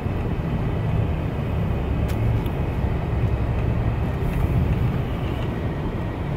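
Steady road and engine noise of a car cruising along a paved road, heard from inside the cabin, with most of the sound low in pitch.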